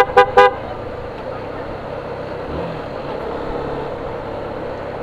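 Three quick toots of a vehicle horn in the first half second. Then the steady drone of a Suzuki Gixxer 150 motorcycle riding at an even pace, with road and wind noise.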